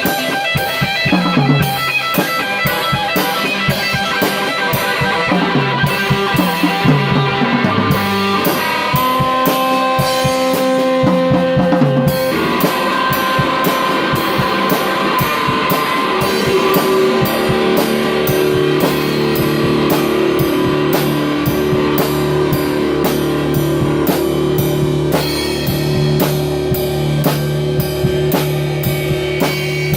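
A band playing djent-style metal on electric guitar and drum kit, with rapid, even drum hits throughout. The guitar plays a stepping run of low notes, then changes to long held notes about twelve seconds in.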